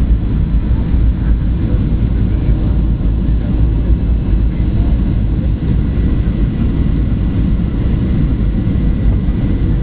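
Steady low rumble inside the cabin of a Boeing 737-800 on approach: its CFM56-7B engines and the airflow over the fuselage, with a faint steady high whine above.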